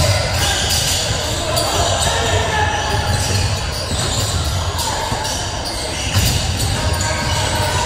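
Basketball being bounced on a gym court during a game, a string of sharp bounces over a steady background of players' and spectators' voices.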